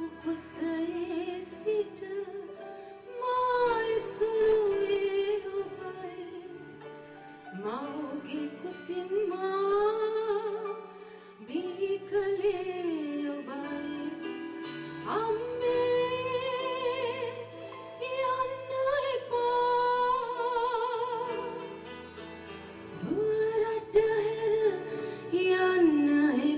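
A woman singing a slow song in a high voice, with long held notes that bend in pitch and carry vibrato, over a steady instrumental accompaniment.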